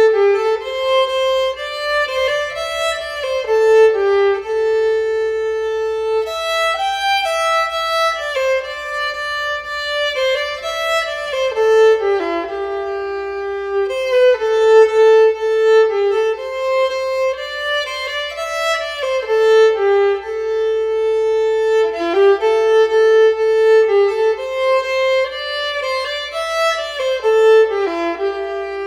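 Background music: a violin playing a flowing melody that repeats its phrase every several seconds.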